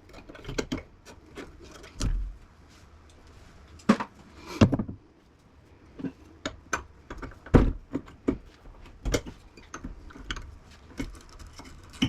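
Hand tools clicking, clinking and knocking against metal parts as a window air conditioner is taken apart for scrap, in irregular strokes with a few harder knocks.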